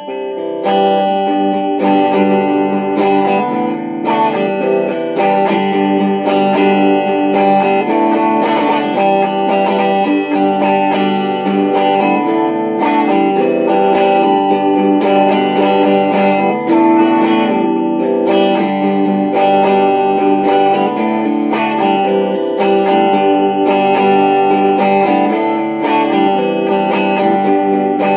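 LP Junior-style electric guitar with a TV Jones pickup playing tone samples: chords strummed in a steady rhythm with many strokes each second.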